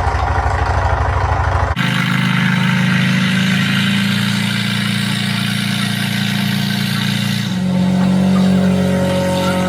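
Piston engine of a North American T-28 Trojan warbird. It runs with a fast low pulsing beat, then cuts sharply about two seconds in to a steadier, higher engine note. The sound shifts again near the end, as rising tones come in.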